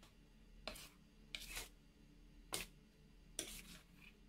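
A steel spoon scraping against the sides of a steel pot as thick chocolate cake batter is stirred, in four short, faint scrapes about a second apart.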